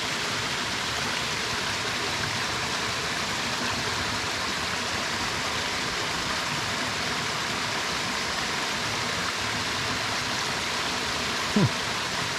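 Steady rushing of creek water, even and unbroken. Near the end there is one brief, sharp sound that drops quickly in pitch.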